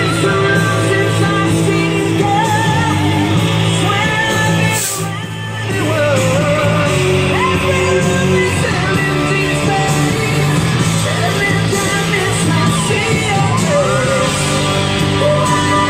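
Rock song with singing over a steady bass line, briefly dropping in level about five seconds in.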